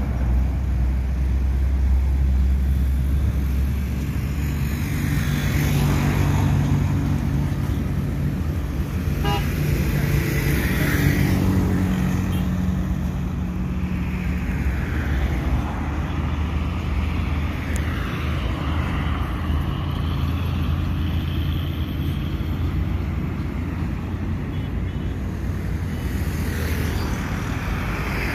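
Highway traffic: heavy diesel trucks, cars and motorcycles driving past one after another. A steady low engine drone runs underneath, with swells of road noise as each vehicle goes by.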